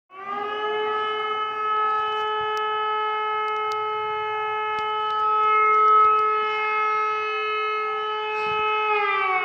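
City civil-defence warning siren sounding during a scheduled test. It winds up quickly at the start, holds one steady pitch, and begins to wind down near the end.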